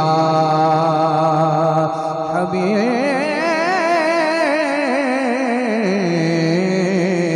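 Naat sung through a PA system: voices hold a long steady note, then from about three seconds in a male voice breaks into a wavering melismatic run with heavy vibrato before settling onto a held note again near the end.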